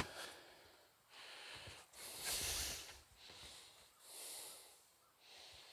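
A sharp clack right at the start as an overhead cabinet door is shut, then a person breathing close by, several faint breaths about a second apart.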